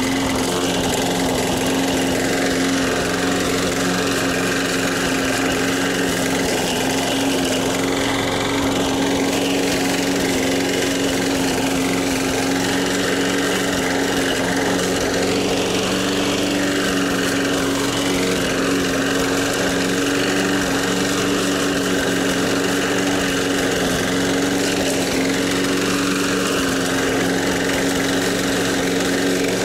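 Four-stroke walk-behind rotary lawn mower engine running steadily at a constant speed while mowing grass with its freshly sharpened blade. It stops suddenly at the very end.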